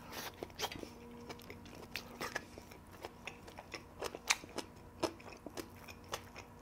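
Close-up chewing of a mouthful with crisp little crunches and mouth clicks, a bite that includes crunchy seasoned dried radish (mumallaengi).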